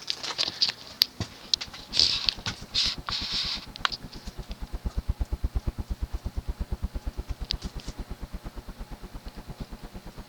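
Shi Chen-built Universal spinner ceiling fan running at its highest speed in reverse (updraft). After a few scattered clicks and rustles, a rapid, even pulsing of air from the passing blades sets in, about eight to ten beats a second.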